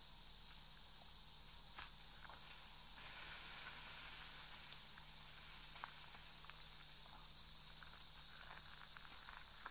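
Steady, high-pitched hiss of a rainforest insect chorus, with a few faint scattered clicks.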